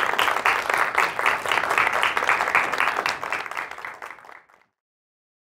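Audience applauding, the clapping fading out a little over four seconds in.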